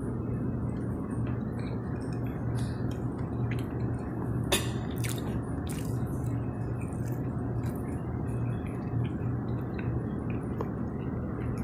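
Restaurant room noise: a steady low hum under scattered small clicks and taps, with one sharper click about four and a half seconds in.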